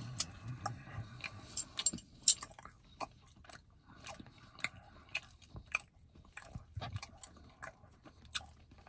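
A person chewing food, with irregular smacking clicks a few times a second.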